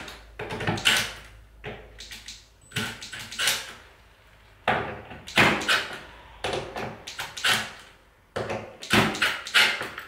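Hinge screws on a door jamb being backed off a little: an irregular run of short scraping and clicking noises as the tool works the screws and the loosened door shifts on its hinges.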